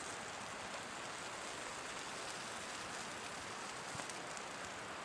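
Steady hiss of outdoor background noise with a few faint ticks, one about four seconds in.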